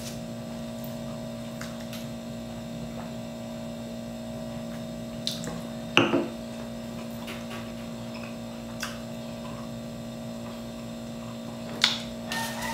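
A steady electrical hum, with a few short, light clicks, the loudest about six seconds in.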